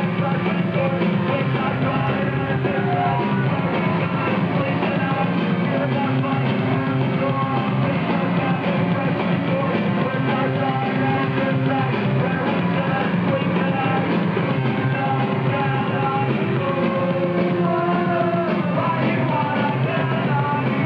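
Punk rock band playing, with singing over the instruments, steady and loud throughout.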